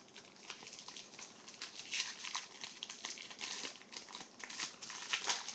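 Foil trading-card pack wrapper being crinkled and pulled open by hand: a continuous run of small crackles and rustles.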